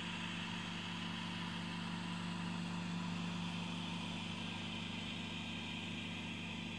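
Steady hum of a home-built 3D printer's cooling fans running while the finished print sits on the heated bed, with no motor movement.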